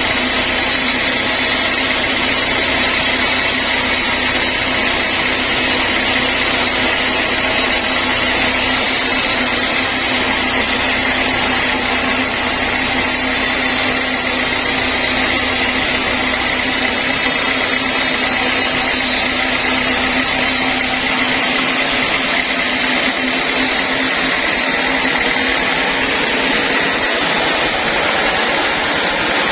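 Band sawmill running steadily: a continuous machine drone with a steady high whine. The low rumble thins out about two-thirds of the way through.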